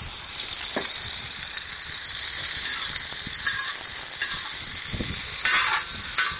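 Chopped vegetables sizzling in oil in a large round metal cooking disc, with a steady frying hiss. A metal spatula scrapes and clatters against the pan now and then, most strongly about five and a half seconds in.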